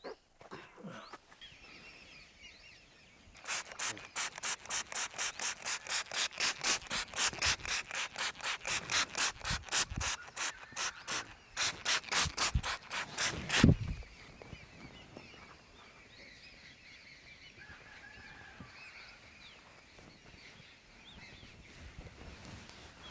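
Hands rubbing briskly back and forth over hair and skin in a massage, at about three strokes a second for some ten seconds, then stopping abruptly.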